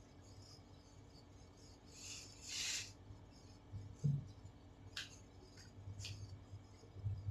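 Whiteboard being wiped with a duster: a brief rubbing swish about two seconds in, a soft low thump about four seconds in, then two light taps a second apart.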